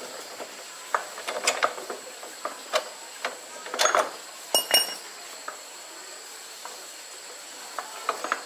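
Metal tools and parts clinking and knocking in irregular taps, with a brief ringing metallic ping about four and a half seconds in.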